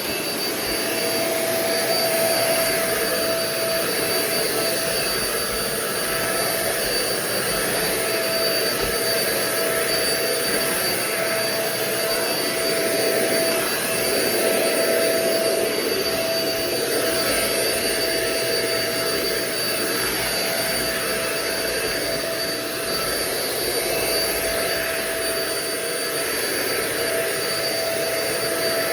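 Euro-Pro Shark EP600 bagless stick vacuum running steadily: a rush of air with a steady motor whine of several high tones, swelling and easing a little.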